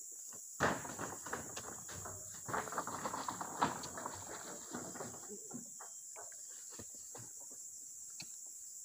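Oil palm fruit bunches being heaved with poles and thrown onto a truck: a dense run of knocks, thuds and rustling from about half a second to four seconds in, then scattered single knocks. Steady high insect buzzing runs underneath.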